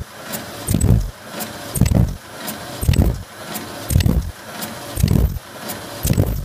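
Pyramid tea bag tagging machine running, cycling about once a second: each stroke is a low thump with sharp metallic clicks, over a steady mechanical clatter.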